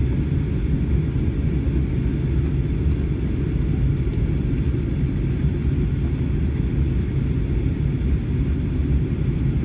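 Steady low cabin drone of an Airbus A321 descending on approach, engine and rushing airflow noise heard from inside the passenger cabin.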